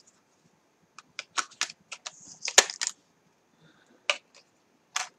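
Craft supplies being handled: a scatter of light clicks and crinkles, with one sharper click about halfway through.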